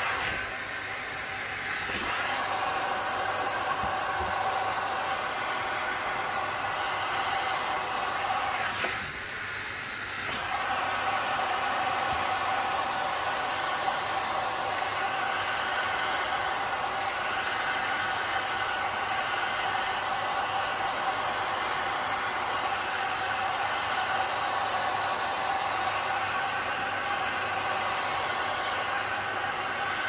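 Heat gun running steadily: a blowing rush with a steady fan whine, dipping briefly about nine seconds in.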